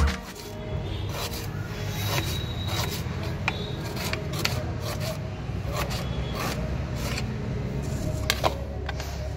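Knife slicing a red onion on a chopping board: irregular cuts and taps of the blade on the board, about one every half second to a second, over a steady low hum.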